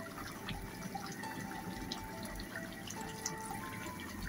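Thick roast masala gravy bubbling and sizzling in a karahi, with many small pops, as pieces of fried chicken go into it.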